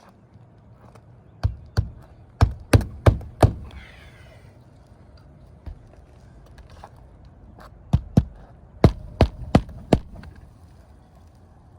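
Claw hammer driving roofing nails through a replacement asphalt shingle, struck in two runs of about six sharp blows each, a few seconds apart.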